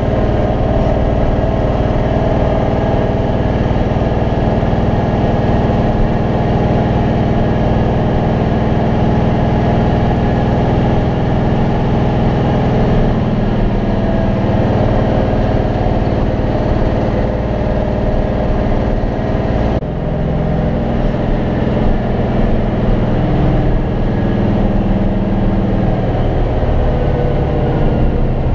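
MAN truck's diesel engine running steadily as the truck drives along, its pitch shifting after a brief break about two-thirds of the way through.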